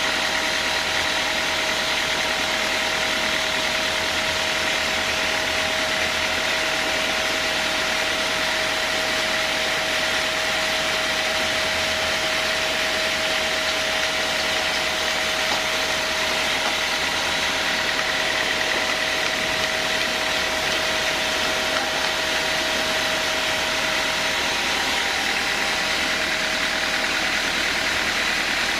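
Sawmill band saw machinery running steadily, a constant mechanical drone with a high whine over a broad hiss.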